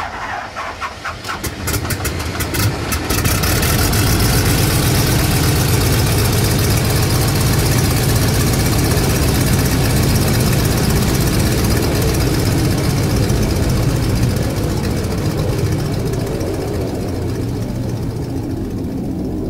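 Radial engines of a B-17 Flying Fortress, four Wright R-1820 Cyclones: separate pops over the first few seconds that quickly run together into a loud, steady drone, easing off slightly near the end.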